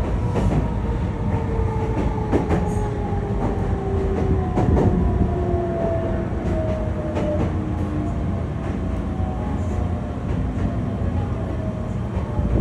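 Meitetsu commuter train heard from inside the car: steady running rumble with scattered clicks from the wheels over rail joints, and a motor whine that falls slowly in pitch as the train slows for the next station.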